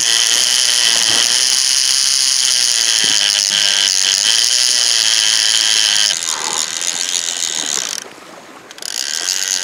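Conventional shark reel screaming, its clicker ratcheting rapidly as a shark runs off with the bait and strips line from the spool. The high, steady buzz changes a little around six seconds in, cuts out about two seconds before the end, then starts up again briefly.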